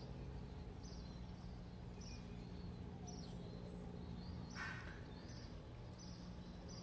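Faint outdoor ambience: small birds chirping about once a second, with a steady low hum underneath.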